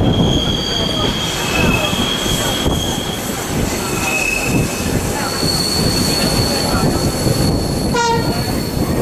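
Electric train of the Flåm Railway running down the line, heard from an open carriage window: a steady rumble of wheels on the rails, with high, thin wheel squeals that come and go as the train takes the curves.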